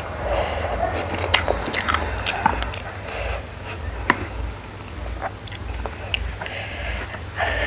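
Close-miked eating of spicy instant noodles: slurping and chewing mouth sounds, with scattered sharp clicks from chopsticks against the bowl.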